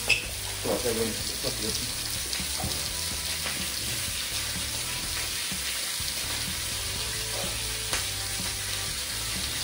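Steak searing in hot olive oil in a frying pan on a gas hob: a steady sizzle.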